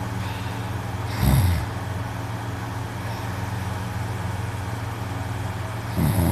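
A man snoring loudly in deep sleep: a short snore about a second in and a longer one starting near the end, over a steady low hum.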